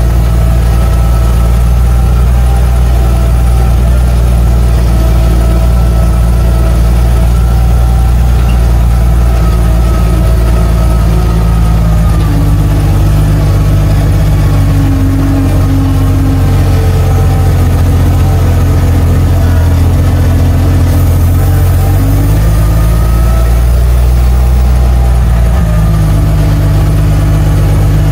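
Six-cylinder engine of a 1948 Bedford truck running as the truck drives along, heard loud from inside the cab. The engine note shifts about twelve seconds in and again near the end.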